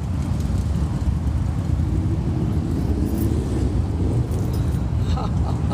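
Motorcycle engine running with a low, rapid pulsing rumble.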